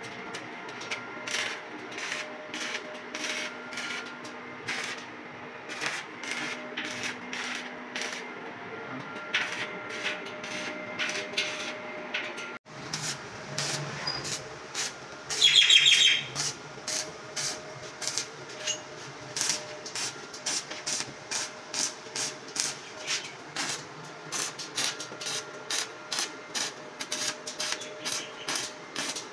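Stick (arc) welding on stainless steel railing pipe as tack welds are struck: short sharp crackles repeating about once or twice a second, with one louder, longer stretch about fifteen seconds in.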